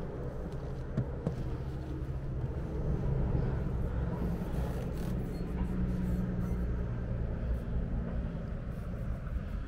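An engine running steadily, a low even hum, with a single knock about a second in.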